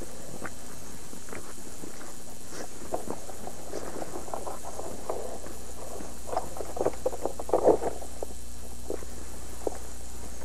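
Footsteps swishing and crackling through tall grass, in irregular short rustles that bunch up and grow loudest about seven to eight seconds in, over a steady background hiss and low hum.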